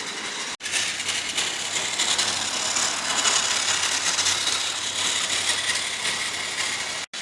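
Trackmaster Peter Sam toy engine running on plastic track, its single-AA-battery flat drive unit whirring steadily along with the clatter of its gears and wheels.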